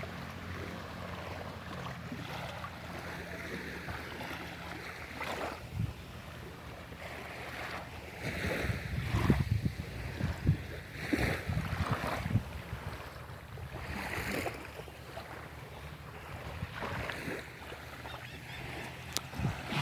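Sea waves washing in, with wind gusting on the microphone and a steady low hum underneath; the waves and gusts swell strongest about halfway through.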